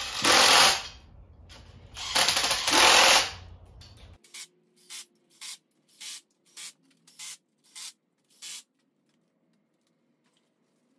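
Impact gun on a low setting running head bolts down onto a 6.1 Hemi cylinder head, just snugging them without torquing: two bursts of about a second each, then a run of about eight short quick bursts roughly half a second apart that stop a couple of seconds before the end.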